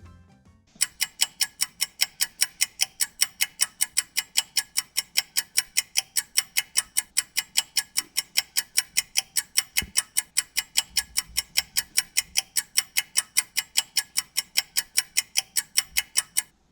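Rapid, perfectly even ticking, about five sharp ticks a second, starting and stopping abruptly.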